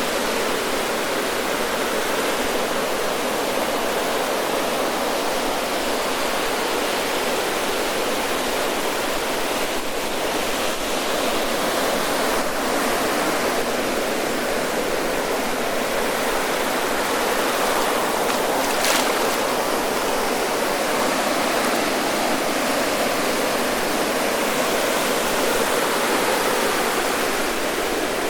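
Ocean surf breaking and washing up the sand: a steady, continuous rush of churning waves with no separate crashes standing out. About nineteen seconds in there is one brief sharp click.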